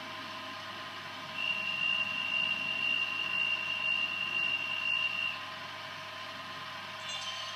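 Jouef X 72500 model diesel railcar standing still with a steady idling engine hum. A single high steady tone sounds over it for about four seconds, starting about a second and a half in.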